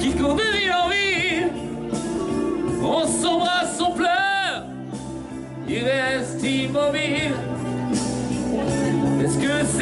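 Man singing into a handheld microphone over backing music, with a wavering vibrato on his held notes.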